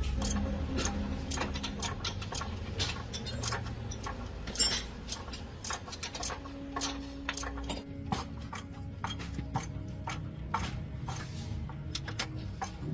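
Irregular metallic clinks and taps of steel tools and parts being handled, over a low hum.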